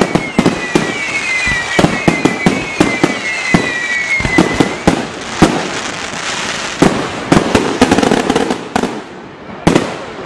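Fireworks finale barrage: a rapid string of aerial shell bursts and sharp bangs. Through the first half, whistles fall in pitch again and again over the bangs. A denser run of bursts follows, then one last loud bang near the end.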